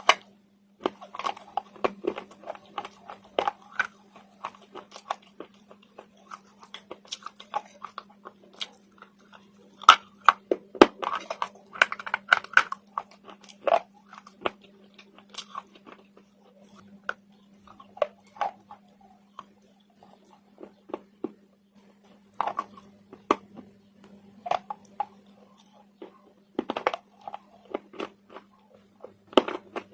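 Slate being bitten and chewed close to the microphone: irregular sharp cracks and crunches that thin out for several seconds past the middle, then pick up again. A faint steady hum runs underneath.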